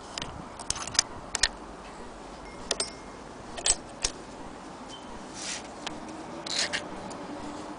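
Scattered sharp metal clicks and taps as the parts of an antique hand-crank Singer 12K fiddle-base sewing machine are handled, with two or three short scraping rustles between about five and seven seconds in.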